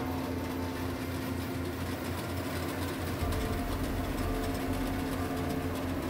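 Tracked rice combine harvester running steadily as it cuts and threshes standing rice, a continuous machine drone with a low hum that grows a little stronger about halfway through.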